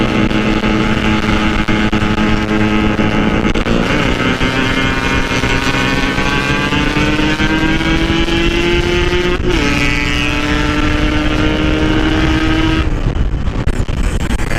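Yamaha RX-King's 135 cc single-cylinder two-stroke engine running under way through its stock-style expansion-chamber exhaust. Its pitch climbs steadily as it accelerates, drops sharply about two-thirds of the way through as at a gear change, climbs again, then eases off near the end.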